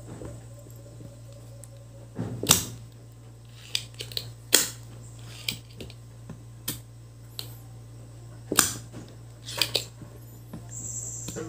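Irregular sharp clicks and taps of metal tweezers and a soldering-iron tip against a circuit board while IC pins are desoldered and lifted, about a dozen in all and loudest a couple of seconds in, midway and near the end. A steady low hum runs underneath.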